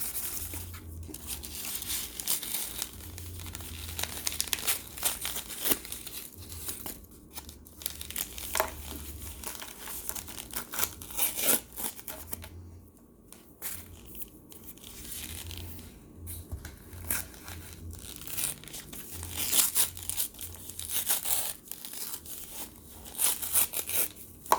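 Baked cornstarch being crumbled and broken into chunks by hand: a long run of dry, irregular crackling and crinkling.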